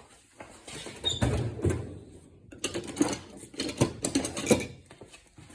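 Metal hand tools being handled: pliers and tools clicking and knocking against each other in a series of short, irregular knocks from about a second in.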